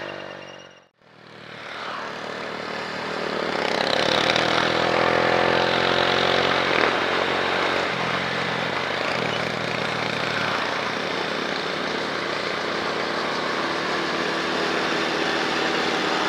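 Motorcycle engine running on the road. The sound drops out almost to nothing about a second in, then comes back: the engine's pitch rises a little and holds steady under a constant rushing noise.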